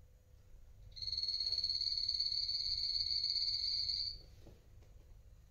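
A guinea pig chirping: one high, steady, trilling whistle of about three seconds, starting about a second in.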